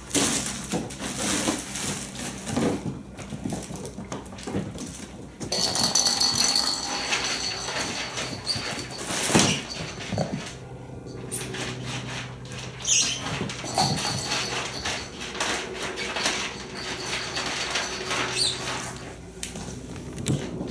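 Kittens scrambling on and through a fabric cat play tunnel: rustling of the tunnel's nylon, scrabbling paws and soft knocks, in a rapid, irregular stream.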